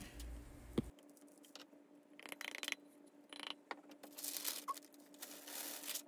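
Loose glitter shaken from a small jar onto a glue-coated glass and parchment paper: faint scattered rattles, light taps and brief rustles.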